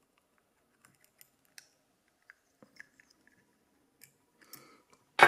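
Faint, scattered small metallic clicks of lock parts being handled as a brass lock plug is slid out of its cylinder housing behind a follower bar. A sharp, much louder knock comes right at the end.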